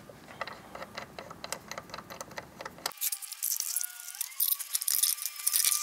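Scattered light clicks and metallic rattling as winch hardware is handled: the winch's synthetic rope and metal hook clinking while being worked.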